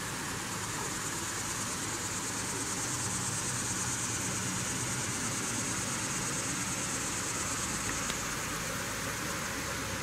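A high, steady drone of insects buzzing in the trees, swelling through the middle and easing near the end, over the steady rush of water spilling over the dam's spillway.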